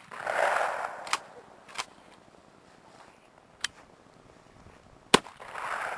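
Shotgun shots at clay targets: the rolling echo of a shot fired just before the start, then a few light clicks, and a second sharp shotgun blast about five seconds in, trailing off in its own echo.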